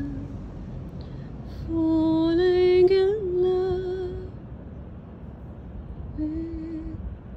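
A woman singing a slow melody, holding one long note that swells and wavers partway through, with shorter notes at the start and near the end.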